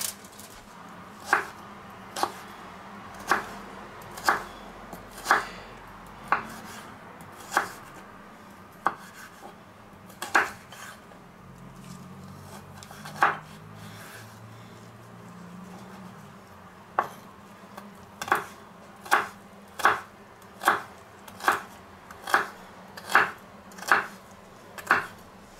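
Kitchen knife slicing carrots thinly on a wooden cutting board: single knocks of the blade on the board, about one a second, coming a little quicker near the end.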